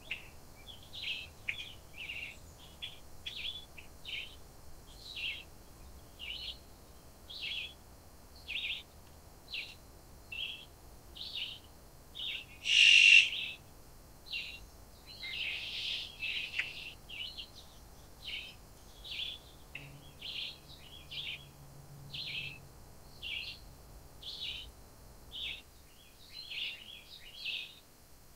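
Wild birds chirping in the forest: short chirps repeat about once or twice a second, with one much louder call a little before halfway through.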